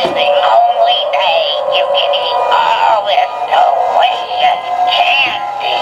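Battery-powered animated clown candy bowl Halloween prop playing its electronic tune with a sung, synthetic-sounding voice through its small built-in speaker. The sound is tinny, with nothing below the mid-range.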